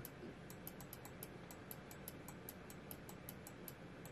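Faint, quick clicking at a computer, about five clicks a second, in a quiet room.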